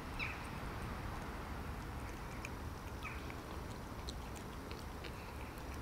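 Cat eating wet food from a plastic tub: many small, quick chewing and smacking clicks. Two short, high, falling chirps come through, near the start and about three seconds in.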